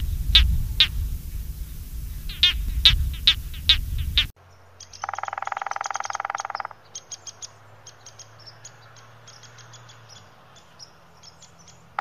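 For about the first four seconds, a series of short, sharp, downward-sweeping calls, a few a second, over a low rumble, cut off abruptly. Then a red-bellied woodpecker drums on a tree trunk in one rapid roll of about a second and a half, followed by scattered light taps, and a second roll begins at the very end.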